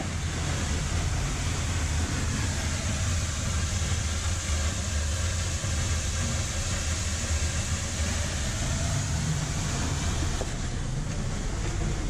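Steady rushing roar of a waterfall with a deep, constant rumble underneath.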